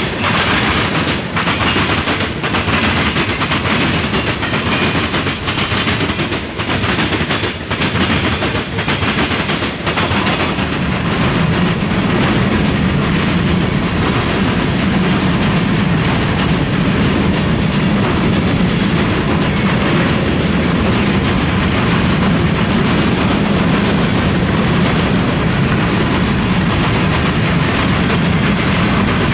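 Freight train cars rolling past close by: loud, steady wheel-on-rail noise with sharp clacks for the first ten seconds or so, then an even rumble as the covered hoppers go by.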